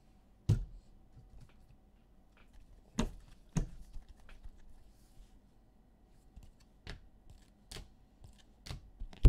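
Scattered sharp taps and clicks of trading cards being handled and set down on a table, a few separate knocks several seconds apart, the loudest about half a second in and another pair around three seconds in.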